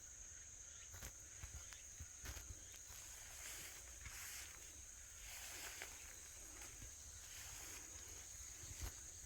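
Faint, steady high-pitched insect drone, with scattered light clicks and rustles.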